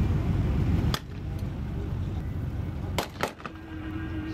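Low vehicle rumble that cuts off about a second in with a sharp crack, then two quick gunshots, blanks fired in a battle re-enactment, about three seconds in.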